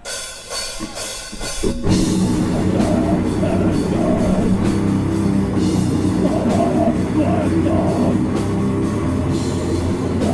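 Death metal band playing live: heavy distorted guitars and drums, with the full band kicking in about two seconds in and carrying on as a dense, loud wall of sound.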